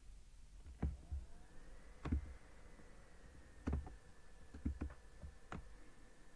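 Computer mouse clicking, about half a dozen sharp single clicks at irregular intervals, with a faint steady high tone underneath.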